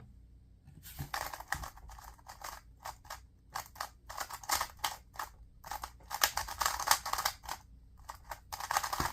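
2x2 speed cube being turned fast during a solve: quick runs of plastic clicking and clacking, starting about a second in and broken by a few short pauses.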